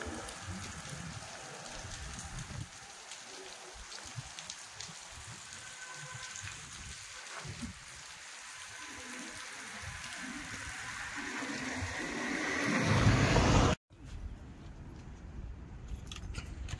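Steady monsoon rain, a continuous patter that swells louder over a few seconds and then cuts off abruptly about fourteen seconds in. After the cut there is a quieter background with a few light clicks.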